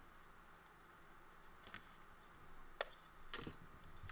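Faint crafting handling noise: paper rustling and scraping, with a few light taps and clicks in the second half, as a glued paper-covered book board is pressed and rubbed against a desk.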